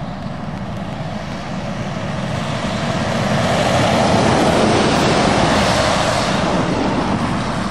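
Articulated lorry with a curtain-sider trailer driving past on a wet road: low diesel engine rumble under a broad hiss of tyres on the wet surface. The sound swells as it approaches and is loudest about four to five seconds in as it passes.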